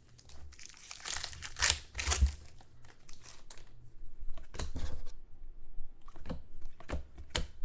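A foil trading-card pack wrapper crinkling and tearing as it is ripped open, followed by a few sharp snaps and ticks of cards being handled in the second half.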